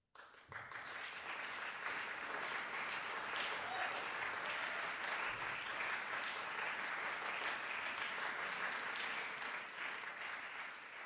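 Audience applause, breaking out suddenly out of silence and holding steady as a dense patter of many hands clapping, easing off slightly near the end.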